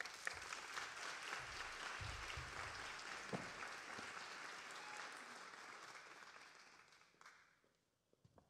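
A small audience applauding. The clapping starts suddenly and dies away after about seven seconds.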